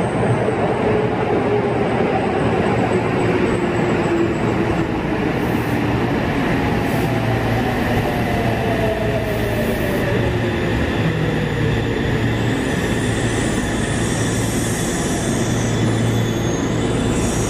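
Yokohama Municipal Subway 3000-series train pulling in and braking: the whine of its VVVF inverter motors falls slowly in pitch as it slows, over the steady rumble of wheels on rails.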